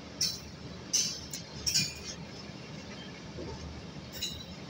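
Passenger train running, a steady low rumble broken by several short, sharp metallic clinks, the loudest about one second and just under two seconds in.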